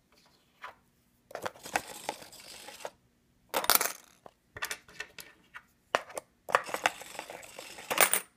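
Homemade littleBits and LEGO useless machine: a small servo turning LEGO gears runs in several short rattly bursts, with clicks and knocks from the cardboard box lid. The burst from about six and a half seconds in is the longest and ends in a sharp knock.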